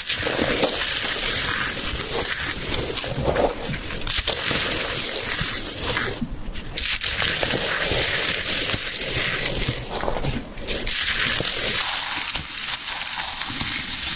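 Something being crushed: a dense, continuous run of crunching and crackling, a little quieter and duller near the end.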